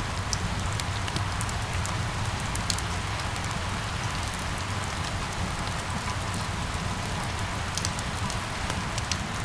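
Steady rain falling on hard surfaces, a constant hiss with scattered sharp drop ticks over a low rumble.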